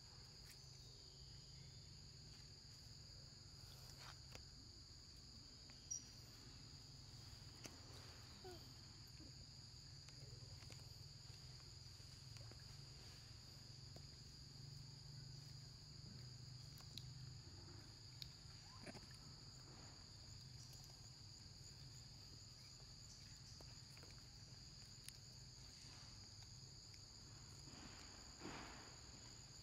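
Faint, steady insect chorus in forest: two unbroken high-pitched tones that never let up, with a few tiny clicks here and there.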